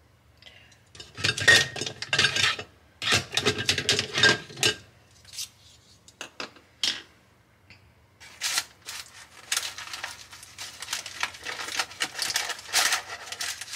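A knife cutting open a freshly baked sausage roll with a crisp pastry crust, scraping and clicking against the dish. The sound comes in bursts: two spells of crunching and scraping, a few single clicks, then a longer run of scraping cuts from about eight seconds in.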